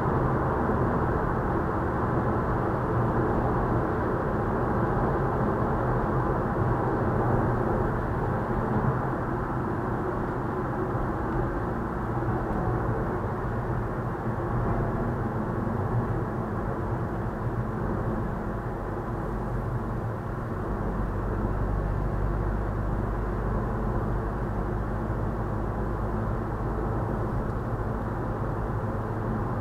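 Steady road and engine noise inside a car's cabin while cruising at motorway speed, an even rumble with a low hum. The low drone grows stronger about two-thirds of the way through.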